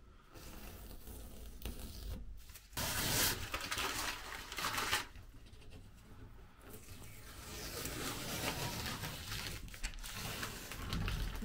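Masking tape being peeled off freshly painted interior surfaces, in irregular tearing bursts, loudest a few seconds in.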